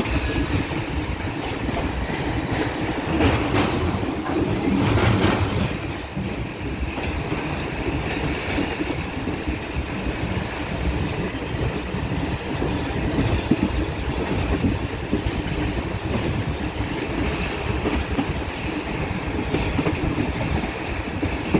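Passenger express train running at speed, heard from on board: a steady rumble of the coaches and wheels clattering over the rail joints, growing louder for a couple of seconds a few seconds in.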